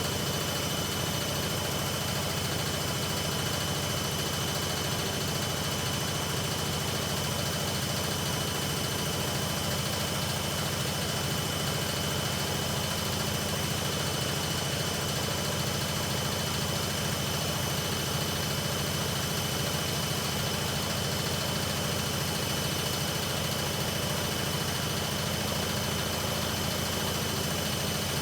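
Hoover Ecologic Computer washing machine spinning its drum steadily on a spin-only programme: an even motor hum with a steady high whine.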